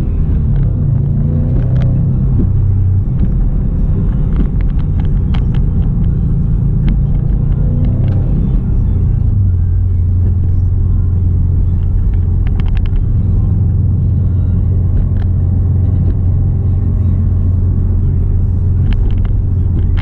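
2019 Subaru WRX STI running while being driven: a loud, continuous low rumble of engine and exhaust. The engine note shifts up and down for the first several seconds, then settles into a steady drone.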